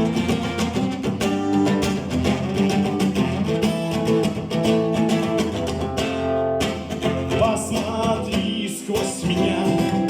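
Acoustic guitar strumming chords through the instrumental close of a song, with a voice singing briefly without words.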